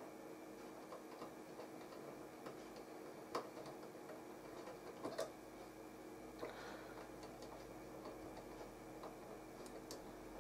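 Small screwdriver turning a circuit-board trim pot, giving faint irregular clicks, a few sharper ones about three and five seconds in, over a faint steady hum. The pot is at its end stop, so the regulator's output voltage does not rise.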